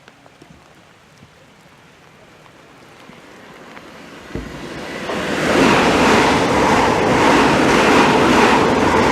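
Pair of Class 365 Networker electric multiple units approaching and running through the station. The sound grows from faint, with a low thump just after four seconds, into a loud rush of wheels and air from about five seconds on.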